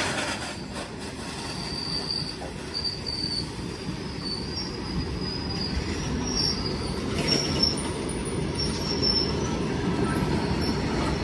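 Goods train's open wagons rolling past close by: a steady rumble of steel wheels on the rails, with brief high-pitched wheel squeals coming and going.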